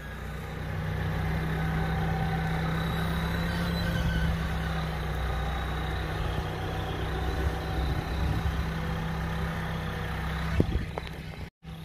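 Scania diesel engine of a log-hauling tractor running steadily under load with a low drone, growing louder about a second in. Near the end there is one sharp knock, and then the sound drops out for a moment.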